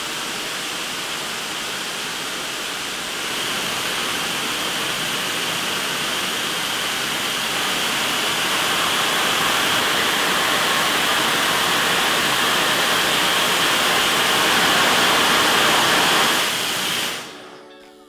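Dyson Supersonic hair dryer converted into a small jet engine running with combustion in its metal chamber: a loud, steady rushing of air and flame with a high whine through it. It gets louder about three seconds in, builds a little more toward the end, then cuts off sharply a second before the end.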